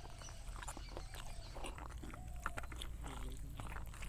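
Close-up chewing and wet mouth sounds of a person eating rice by hand from a banana leaf, heard as many small irregular clicks. A few faint animal calls sound in the background.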